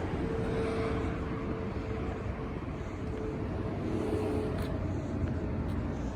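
Steady low rumble of motor-vehicle traffic, with a faint humming tone that wavers in level.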